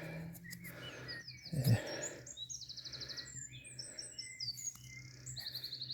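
Small birds singing and chirping, with quick repeated trills, about three a second apart. A brief low thump about a second and a half in.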